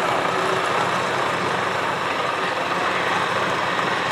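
Alcohol-burning super stock pulling tractor engine idling steadily after a pull.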